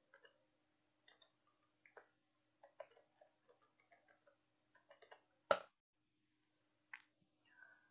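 Faint computer keyboard typing: a quick, uneven run of key clicks as a search phrase is typed, then one much louder click about five and a half seconds in as the search is entered, and another click near the end.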